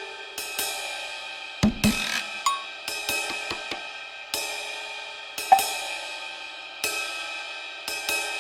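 Background music: cymbal crashes and drum hits about every one to one and a half seconds over sustained keyboard-like tones.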